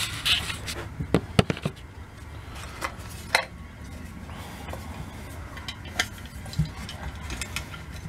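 Scattered light clicks and knocks of small metal switch parts and hardware being handled on a towel-covered workbench, with the camera knocked and shifted about in the first couple of seconds.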